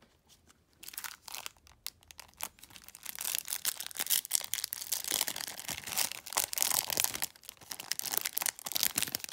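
Trading card pack wrapper being torn open and crinkled: a few light clicks in the first couple of seconds, then about six seconds of dense crinkling.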